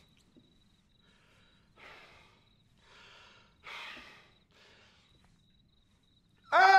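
A man breathing heavily in and out, several short huffs and sighs a second or so apart, fuming with anger. Near the end he breaks into a loud shout.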